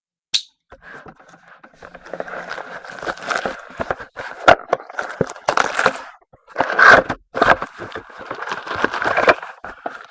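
A box of 2012 Panini Elite football cards being opened: crinkling, tearing and scraping of packaging and cards, with many sharp crackles and clicks, running continuously from about a second in.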